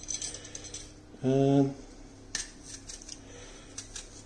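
Small kitchen knife cutting into and scraping apple skin as the apple is peeled: scattered light, crisp scrapes and clicks. A short hummed voice sound comes about a second in and is the loudest thing in it.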